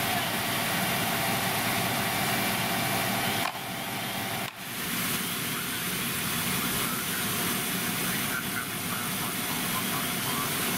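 Fire engine's motor running steadily at the scene, with the sound dropping briefly twice around the middle.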